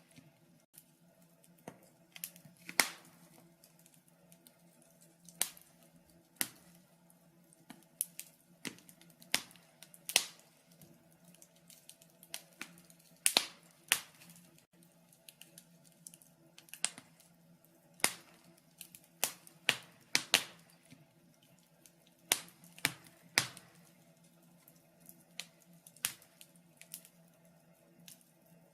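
Wood fire crackling in a fireplace: irregular sharp pops, roughly one or two a second, over a faint low steady hum.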